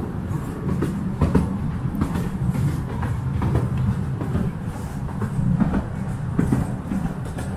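Train running on rails: a steady low rumble with irregular clicks of the wheels over the rail joints.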